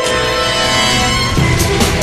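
Dramatic soundtrack music with sustained notes; a steady percussive beat comes in about one and a half seconds in.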